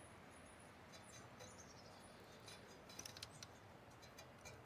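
Near silence: room tone with a few faint, short clicks, mostly around three seconds in.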